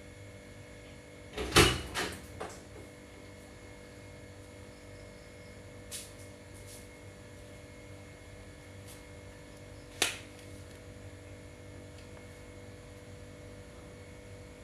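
A few knocks in a small room over a steady electrical hum: a quick cluster of three or four knocks about one and a half seconds in, a faint tap near six seconds, and one sharp knock about ten seconds in.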